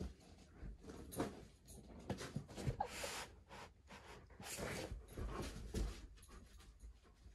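A dog sniffing in short bursts while it searches for a scent, with a couple of longer runs of rapid sniffing.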